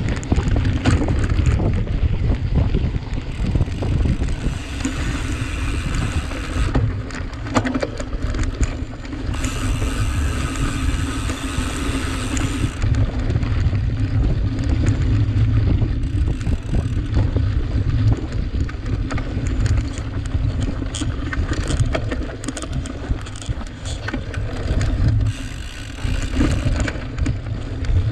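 Wind buffeting the microphone over the tyre and rattle noise of a cyclocross bike ridden hard across rough ground, with scattered sharp rattles. A higher hiss comes in for a few seconds three times, about four seconds in, about ten seconds in and near the end.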